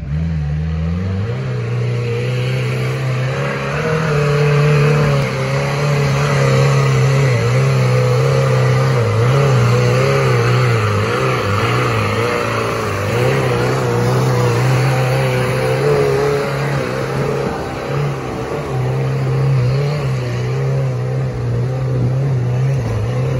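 Rock bouncer buggy's turbocharged Toyota 22R-E four-cylinder engine revving up in the first second, then held at high revs under load as it climbs a steep rocky slope, the pitch wavering a little.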